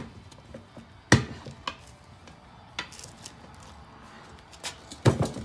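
Crowbars knocking against the wheel rim while prying the tire bead up over the rim lip: a few sharp knocks, the loudest about a second in and a pair near the end.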